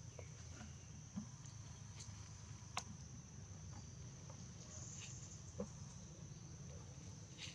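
Steady high-pitched drone of forest insects over a low rumble, with three short clicks or snaps, the sharpest about a third of the way in.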